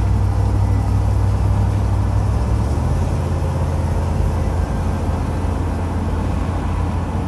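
Steady low rumble of a car's engine and tyres on a paved road, heard from inside the cabin while driving; the low hum shifts slightly about three seconds in.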